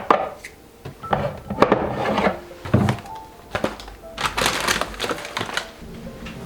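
Knocks, clatter and rustling as food storage containers and pantry supplies are handled and set down on a cupboard shelf, a sharp knock every second or so and a busier stretch of clatter past the middle, over soft background music.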